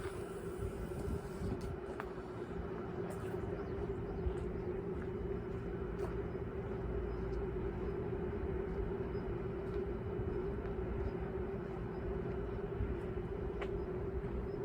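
Small indoor toy quadcopter drone's propellers buzzing at a steady pitch while it flies, with wind rumbling on the microphone.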